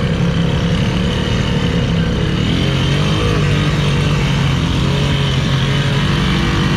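ATV engine running steadily at low revs, heard from the rider's seat, its pitch wavering slightly about halfway through.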